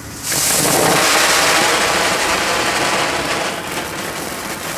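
Category 1 fountain firework bursting into life about a third of a second in with a sudden loud hiss of spraying sparks. The hiss holds steady, then eases off a little near the end.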